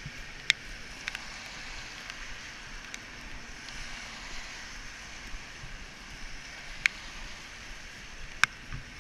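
Steady hiss of traffic on a wet road, broken by a few single sharp clicks: about half a second in, near seven seconds and near the end.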